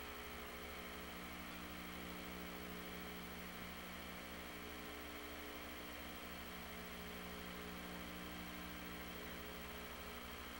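Steady electrical mains hum with an even hiss and no other events.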